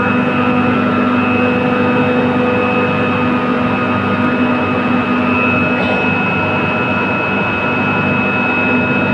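A machine running steadily and loudly, with a dense rumble and several steady whining tones, the highest a thin high whine.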